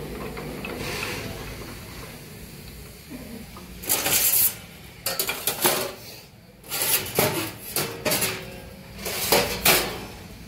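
Crankshaft grinding machine working a JCB engine crankshaft: a low machine hum, then from about four seconds in a run of short, harsh metallic scraping bursts, several close together.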